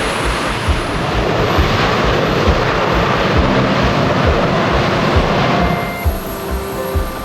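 Jet airliner's engines in reverse thrust after touchdown: a loud rushing noise that drops off about six seconds in. Background music with a steady low beat runs underneath.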